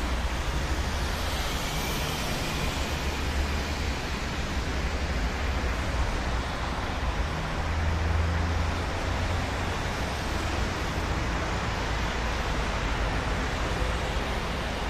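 Steady road traffic noise: cars passing on a busy multi-lane road, an even wash of tyre and engine noise with a low rumble.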